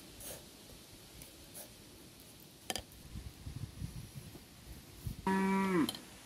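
A cow gives one short, low moo that drops in pitch as it ends, about five seconds in. It is the loudest sound here. Before it there are faint clinks and rustles as sugar is spooned out and poured into a glass jar.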